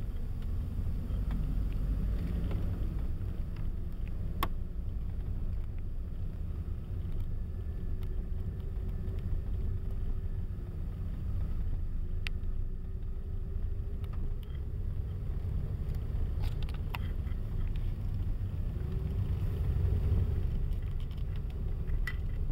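Steady low engine and road rumble heard inside a Chevrolet Camaro's cabin while it drives, with a faint wavering hum and a few sharp clicks.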